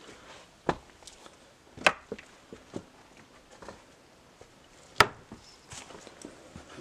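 Footsteps over a pile of broken wooden beams and planks, with sharp knocks and cracks of timber underfoot between quieter scuffs. Three strong knocks stand out, the loudest about five seconds in.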